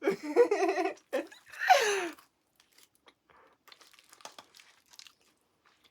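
A voice sounds loudly for about two seconds, ending in a falling glide, then a person chewing and crunching fast food, with faint scattered crunches and light crinkling.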